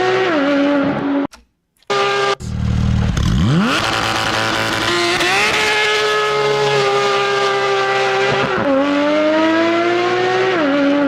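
Sports car engine revving hard through the gears, its pitch climbing and dropping sharply at each shift, with a brief cut about a second and a half in. The hard-sounding six-cylinder note fits a Porsche 911 GT3 RS flat-six.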